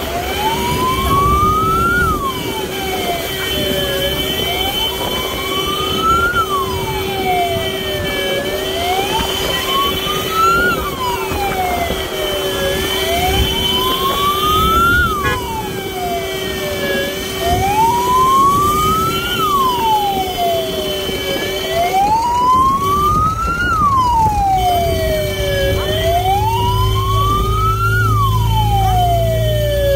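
Wail siren on a motorcycle-sidecar ambulance, sweeping slowly up and down about once every four seconds over motorcycle engine and road noise, with a steady hum underneath. A deeper rumble grows near the end.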